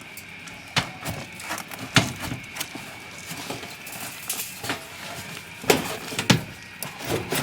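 Thin sheet-metal patch panel being bent and fitted against a car's floor pan: a handful of sharp metallic knocks and clanks, the loudest about two seconds in and twice near the end.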